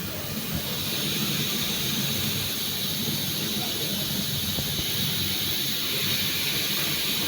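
Coffee machine steam wand hissing steadily, starting about half a second in, over a low hum.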